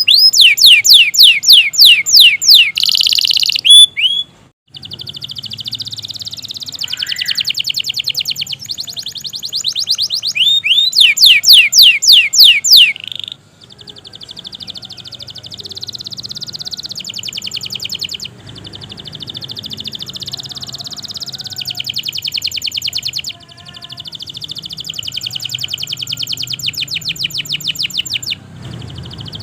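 Domestic canary singing a long, unbroken song of rapid trills: loud runs of quick sweeping whistled notes at the start and again about eleven seconds in, with softer, very fast buzzing rolls between and after them. A faint low hum lies underneath.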